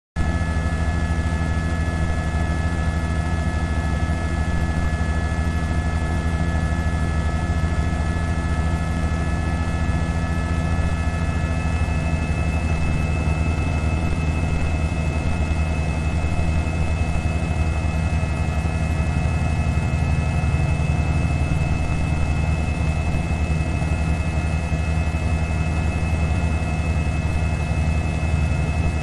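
News helicopter's engine and rotor noise: a loud, steady low drone with a steady high turbine whine on top. It cuts in suddenly out of silence at the start.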